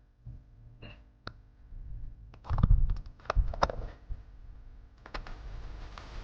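Scattered sharp clicks and knocks of tools and parts being handled during reassembly, with a few heavier thuds about two and a half to four seconds in.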